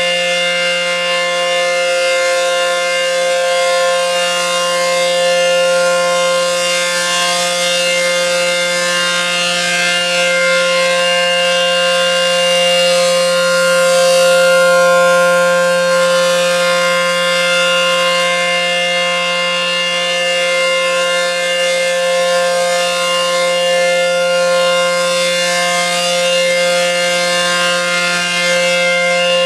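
ACA Penetrator 10 single-phase, dual-tone outdoor warning siren sounding a steady alert tone. The level swells and fades slightly as the rotating horn turns.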